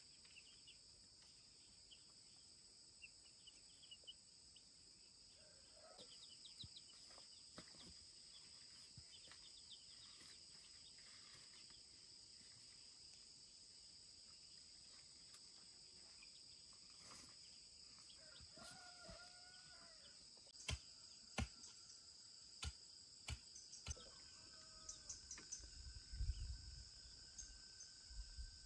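Faint, steady high-pitched drone of insects, with young chicks peeping now and then in the first half. A few sharp knocks sound in the second half.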